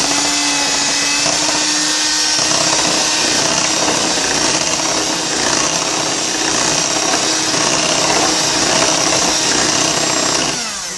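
Electric hand mixer running at speed, its twin beaters whirring through pancake batter in a bowl. It switches off near the end and spins down with a falling pitch.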